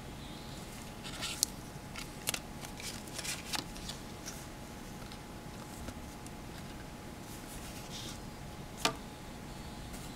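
Paper cards and metal alligator clips being handled: a few sharp clicks and short paper rustles, clustered in the first few seconds, with one more sharp click near the end.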